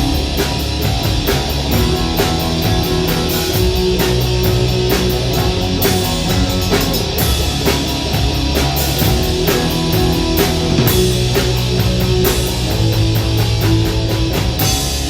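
Live rock band playing loud: distorted electric guitars and bass over a driving drum kit, with steady cymbal and snare hits.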